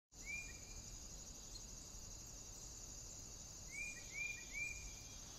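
Faint woodland ambience that starts abruptly: a steady high insect trill, with a bird's short chirps once near the start and three in quick succession about four seconds in.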